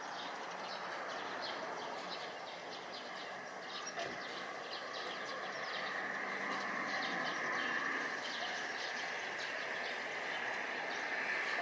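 Outdoor ambience: a steady wash of noise with many short, irregular bird chirps, and a higher hiss that grows louder in the second half.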